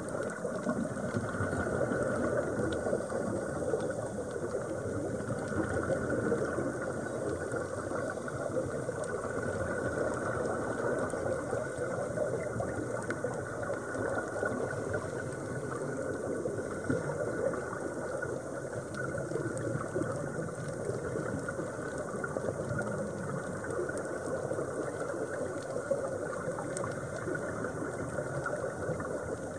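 Underwater sound of scuba divers: a steady churn of bubbling from their exhaled regulator air, with a fine crackle throughout.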